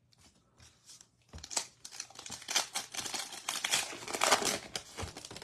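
Trading-card pack wrapper crinkling and tearing as it is handled and opened: a run of rapid rustles from about a second in.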